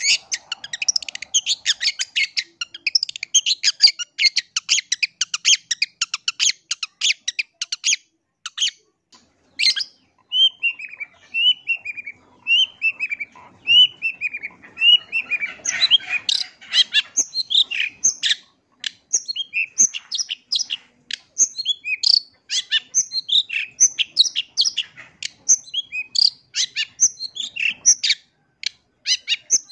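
Long-tailed shrike singing: a long run of rapid, scratchy chattering notes, broken midway by a series of repeated downslurred whistles about twice a second, after which the fast varied chatter resumes.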